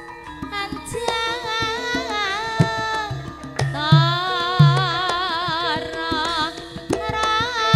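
Javanese gamelan music for a tayub dance: a high singing voice with a wide, wavering pitch over sustained metallophone tones, with deep kendang drum strokes every second or so.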